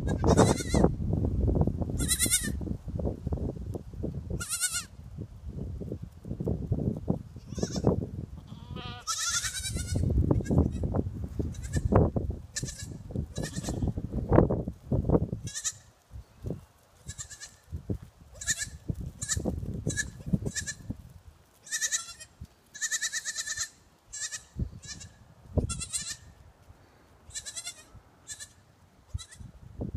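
Kinder goat kids bleating, about twenty short high-pitched calls scattered throughout and coming more often in the second half. A low rumbling noise runs under the first half and then drops away.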